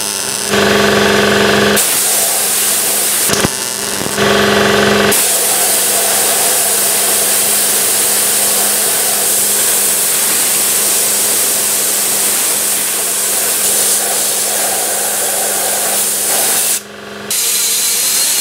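MIG welder buzzing and crackling in two short bursts in the first few seconds, welding a patch into an old hole in a sheet-steel firewall. Then an air-powered die grinder with a small abrasive disc runs with a steady high hiss, grinding the weld flush, and drops out briefly near the end before running again.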